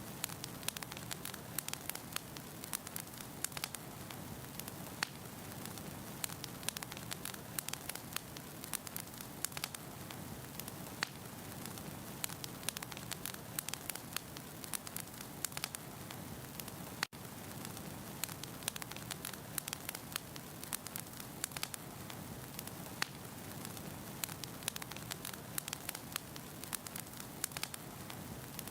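Firewood burning in a fireplace: a steady low rush of flame with frequent irregular sharp crackles and pops from the logs. The sound drops out for an instant about seventeen seconds in.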